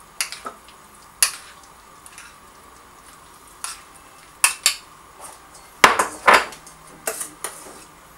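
A spoon clinking and scraping against bowls as fruit is folded into a thick cream: about ten scattered knocks, the loudest pair about six seconds in.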